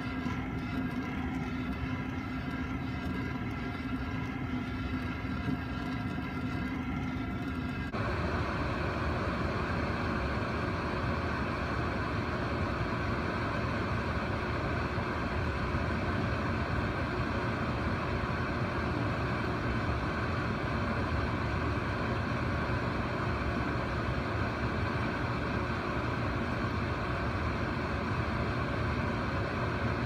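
A torch flame playing on a glass bottle inside a microwave oven, with a steady hum. About eight seconds in it changes abruptly to the louder, steady hum and whir of the microwave oven running while it heats the glowing, melting bottle.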